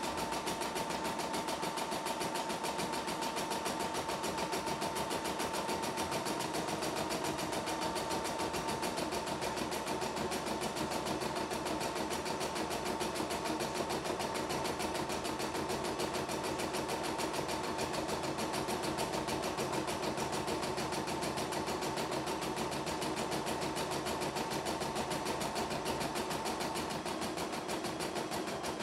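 CNY E960 computerised embroidery machine stitching out an embroidery design, its needle running steadily at speed while the embroidery arm moves the hoop.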